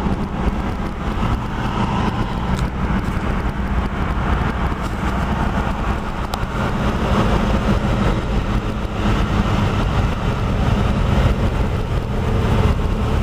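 Steady road and engine rumble heard inside a moving car.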